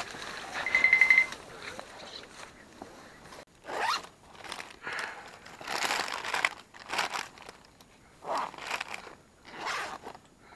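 Zipper being pulled several times in separate rasping strokes, with a short buzzy purr about a second in.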